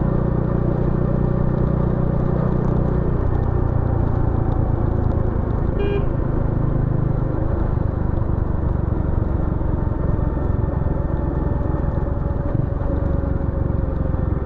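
Bajaj Dominar 400's single-cylinder engine and exhaust running under way, the engine note dropping to a new pitch about three seconds in and again about seven seconds in.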